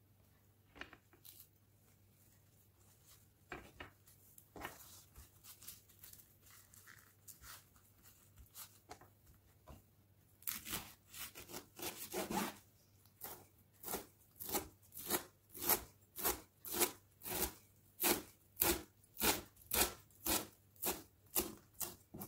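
Chef's knife slicing kohlrabi leaves into thin ribbons on a cutting board. A few scattered taps and rustles at first, then about halfway through a steady run of slicing strokes, roughly one and a half a second, growing louder.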